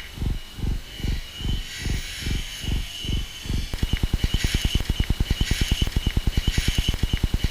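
WiFi interference picked up by a GoPro Hero4's built-in microphone: a rhythmic 'helicopter' thumping, about three pulses a second, that speeds up to about ten a second a few seconds in, over a faint hiss and a steady high tone. The uploader takes it for a loose joint in the shielding around the WiFi antenna, where the microphone sits.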